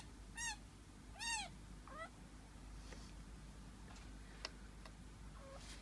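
Chinchillas squeaking: three short high calls in the first two seconds, each rising and falling in pitch, followed by a few faint clicks.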